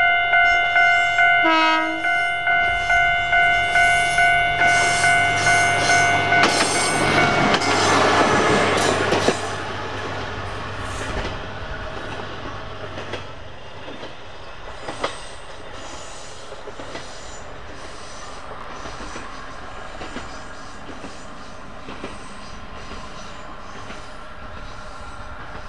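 Japanese level-crossing alarm ringing a steady repeated tone about twice a second as a diesel railcar comes up and passes in a loud rush of noise. About nine seconds in it gives way to a much quieter, distant train sound with scattered ticks.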